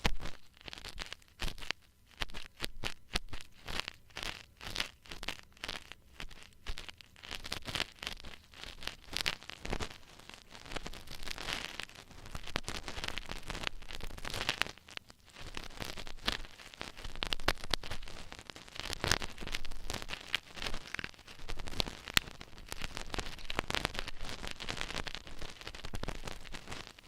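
Ear-cleaning tools scratching and rustling close against an ear microphone, making crackly scraping strokes. At first the strokes come as separate pulses, about two a second, then they run together into denser, continuous scratching.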